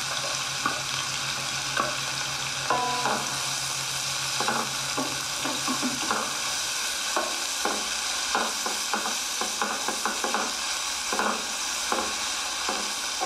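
Freshly added raw sliced onions sizzling in hot oil in a kadai as they are stirred, with a steady frying hiss. A spatula scrapes and taps against the pan again and again, busiest from about four seconds in.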